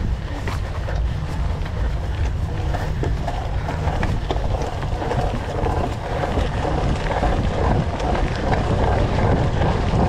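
Wind rushing over a handlebar-mounted camera's microphone as a bicycle rides through sand and onto a dirt track, with a steady tyre rumble and scattered small rattles and knocks from the bike.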